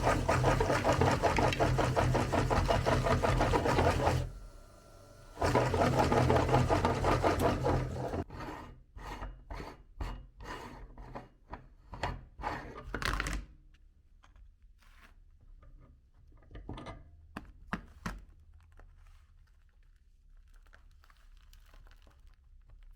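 Electric meat grinder motor running under load as it grinds chocolate candy. It stops briefly about four seconds in and starts again, then runs in a series of short bursts. After it falls quiet, only a few faint knocks and handling sounds remain.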